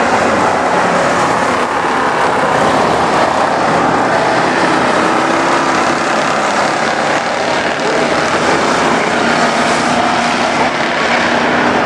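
Street stock race car engines racing round a dirt oval: a steady, blended engine drone from the cars on the track.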